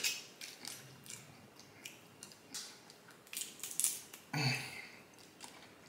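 Close-miked eating of snow crab legs: scattered small crackling snaps of shell as a leg is broken apart by hand, with wet chewing and mouth sounds. The loudest snaps come about four seconds in.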